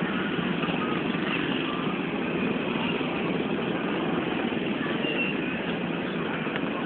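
A steady engine-like rumble, with faint distant voices.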